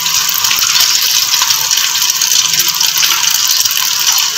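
Hot cooking oil sizzling steadily in a pan as egg-sealed, keema-stuffed bitter gourds (karela) fry.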